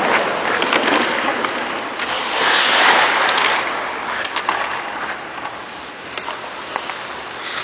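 Hockey skate blades scraping and carving across the ice as a skater strides away, a hissing scrape with a longer, louder swell about three seconds in and a few light clicks, fading toward the end.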